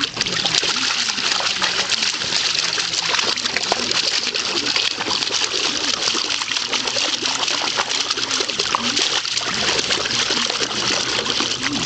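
A wheaten terrier splashing in a shallow plastic kiddie pool, pawing and digging at the water: continuous sloshing and splashing.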